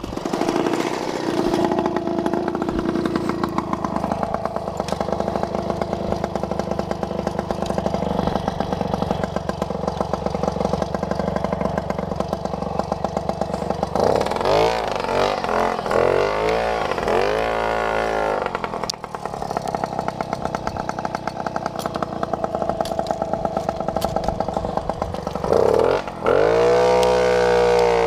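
Babetta moped's small single-cylinder two-stroke engine running under way, steady at first, then revving up and down in repeated swings about halfway through and again near the end.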